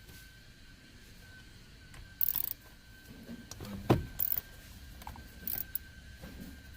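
Metal hand tools clicking and clinking while working a bolt loose: a few short bursts of clatter and one sharp knock about four seconds in, over a faint steady high tone.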